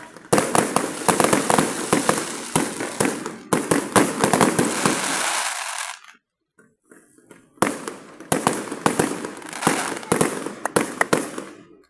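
Fireworks going off in dense, rapid volleys of cracks and bangs, pausing for about a second and a half just past the middle before another volley.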